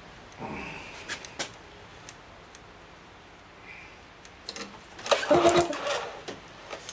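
Yamaha outboard engine being cranked over briefly twice, once about half a second in and again, louder, about five seconds in, with sharp clicks among the cranking.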